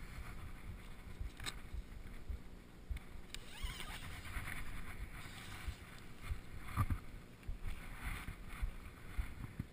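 Nylon stuff sacks rustling and crinkling as they are handled, with scattered knocks and a low rumble from the body-worn camera being jostled.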